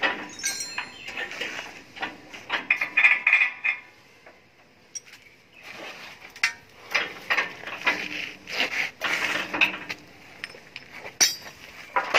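Irregular metallic clinks and knocks as steel parts of a concrete block-making machine's frame and mould are handled and fitted, with a quieter spell in the middle.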